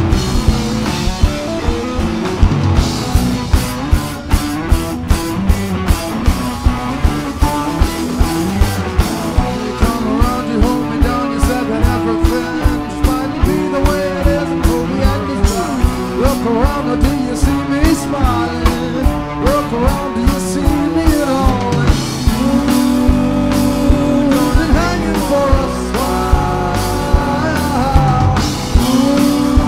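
Live surf-rock band playing: a drum kit keeping a steady beat of about two hits a second under electric guitar lines and bass.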